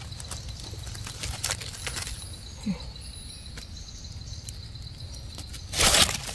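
Dry leaf litter rustling and crackling faintly as a gloved hand pulls wild mushrooms from the forest floor, with one louder rustle about six seconds in.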